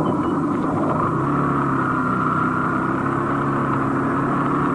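Motor scooter engine running under way on a wet road, a steady hum that drifts slightly in pitch over a constant hiss.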